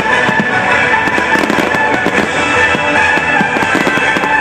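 Aerial fireworks display with dense, rapid crackling and popping of bursting shells, over music playing at the same time.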